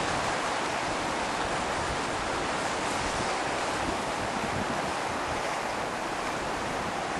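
Steady rush of rough sea surf breaking on rocks, mixed with strong wind buffeting the microphone in gusts.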